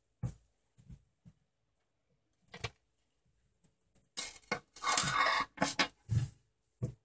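A metal chain necklace with a key pendant jingling and clinking in the hand: a few light clicks at first, then a dense stretch of rattling from about four seconds in. It lands on a table about six seconds in, with one last click near the end.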